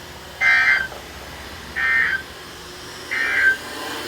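Emergency Alert System (SAME) end-of-message data code: three short bursts of warbling two-tone digital data, about a second and a half apart, signalling the end of the warning.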